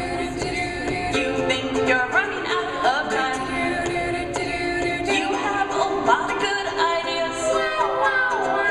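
Several voices singing together in harmony, with short upward vocal slides here and there.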